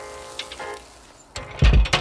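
Background music: a few short pitched notes, then a heavy low bass hit about one and a half seconds in, which is the loudest sound.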